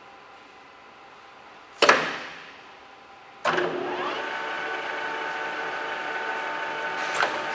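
Kingston HL4000 engine lathe: a loud clunk from the headstock as its gear levers are shifted. The spindle then starts and spins up in about half a second, rising in pitch, and settles into a steady geared whine from the headstock. A smaller knock comes near the end.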